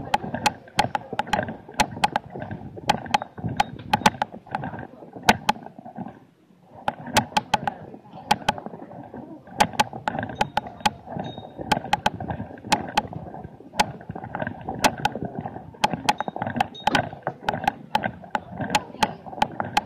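Crowd chatter of a busy pedestrian street market, with frequent irregular sharp clicks and taps over it and a brief lull about six seconds in.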